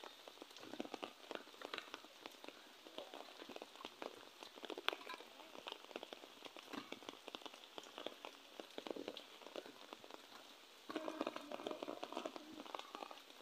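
Quick, irregular patter of splashes and drips on shallow pond water. It gets louder and denser about eleven seconds in.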